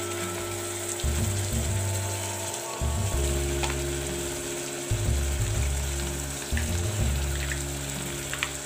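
Chopped onions with ginger-garlic-green-chili paste sizzling steadily in hot mustard oil in a kadhai, over background music with low bass notes.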